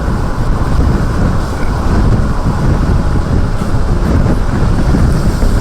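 Strong wind buffeting the microphone: a loud, steady low rumbling rush with no break.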